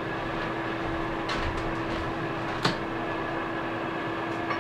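Steady kitchen room hum, one even tone over a light hiss, with a few faint knocks and a soft sharp click about two and a half seconds in.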